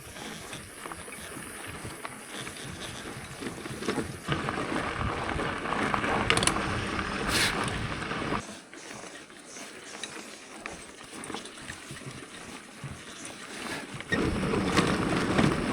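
Loaded touring bicycle ridden over a rough dirt trail: tyres on dirt and stones with the bike rattling, a couple of sharp knocks midway. The noise gets louder for a few seconds in the middle and again, more steadily, near the end.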